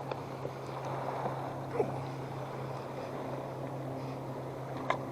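Motorboat engine running steadily on the lake, a low, even hum under a noisy wash, with a few short knocks.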